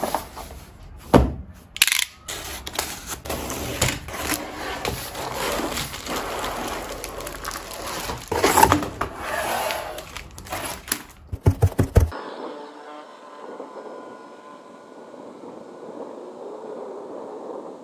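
Cardboard box and the plastic-bagged foam parts of an RC plane kit being handled, with knocks, scraping and plastic crinkling, and a quick run of sharp clicks near the end. About twelve seconds in it cuts to a quieter, steady outdoor noise with a faint thin hum from the small electric motor of the foam flying RC plane.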